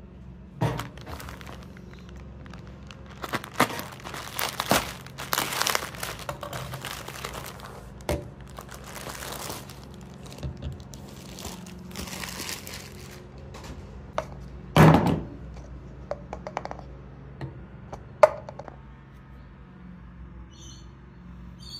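Plastic mailing satchel and bags crinkling and tearing as they are opened and handled, in irregular bursts. A few knocks come from items being put down, the loudest and sharpest about 15 seconds in and another about 18 seconds in.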